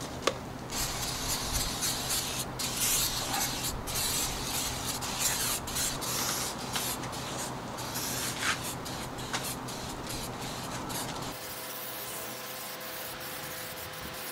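Aerosol can of tyre shine hissing as it sprays onto the tyres and wheel arches, in long bursts with short breaks.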